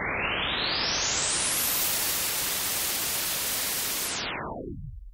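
White noise played as an example: a steady hiss that grows brighter over the first two seconds as its upper range sweeps up to full, holds, then darkens quickly from about four seconds in down to a low rumble and stops.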